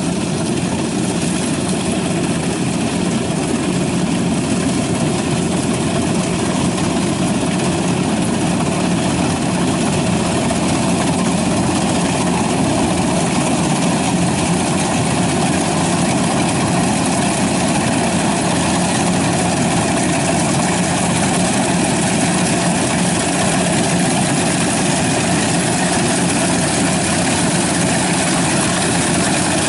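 Kubota rice combine harvester running steadily under load as it cuts rice, its diesel engine and threshing machinery making a loud, unbroken drone that grows a little louder as it comes closer.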